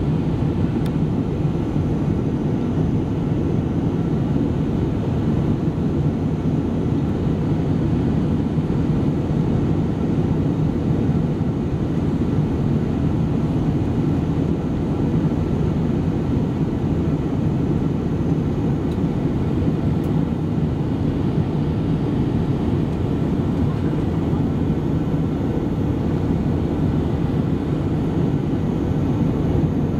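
Steady jet airliner cabin noise during the climb after takeoff: a continuous drone of engines and rushing air, heaviest in the low range.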